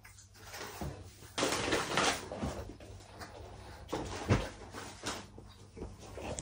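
A cardboard food box being handled and moved onto a lap: a scraping rustle about a second and a half in, then scattered knocks and taps, the loudest a dull thump around four seconds in.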